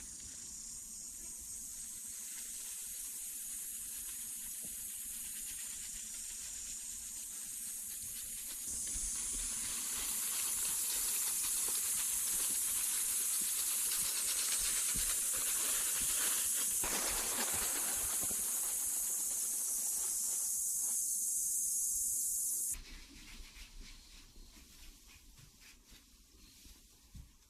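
A steady high-pitched hiss that gets louder about nine seconds in and cuts off suddenly near the end.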